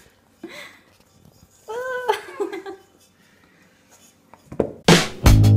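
A short, high-pitched call that rises and falls about two seconds in, among a few quiet vocal sounds; then loud music with a heavy drum beat and bass cuts in near the end.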